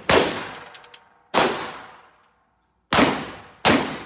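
Four gunshots, unevenly spaced, each followed by a ringing echo that dies away. A few light metallic clinks follow the first shot.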